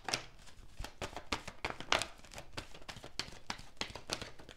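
A tarot deck being shuffled by hand, the cards tapping and slapping together in quick, irregular clicks, several a second.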